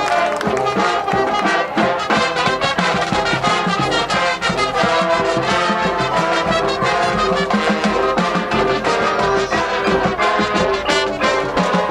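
Marching band playing a field show: a full brass section sounds a loud, sustained melody with chords over a steady stream of percussion strikes.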